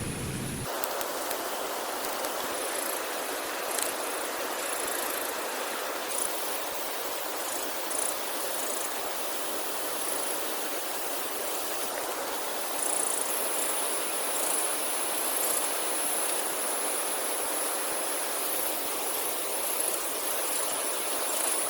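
Steady outdoor rushing noise, like running water, with a thin high-pitched whine that comes and goes and holds steadier through the second half.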